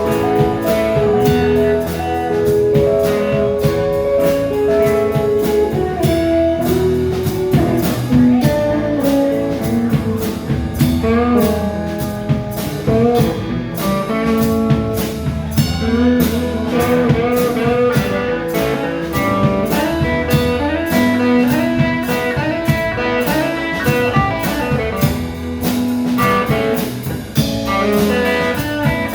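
Band playing a blues-rock instrumental: a guitar lead with bent notes over drums.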